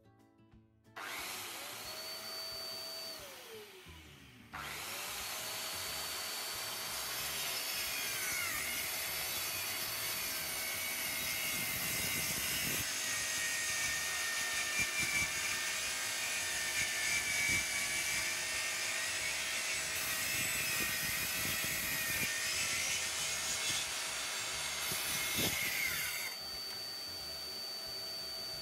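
Plunge-cut track saw on an aluminium guide rail, run through its dust-extractor hose. It starts about a second in and runs down again, then restarts and cuts through a thick laminated solid-wood board for about twenty seconds, its pitch wavering under load with a few knocks. Near the end the saw stops and the steady hum of the dust extractor carries on.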